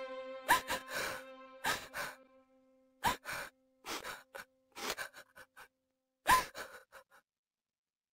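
A young girl crying in short, irregular sobbing gasps. Held notes of sad background music fade out during the first few seconds.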